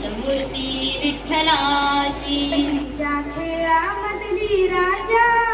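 A schoolgirl singing solo into a handheld microphone, holding long notes and gliding between pitches.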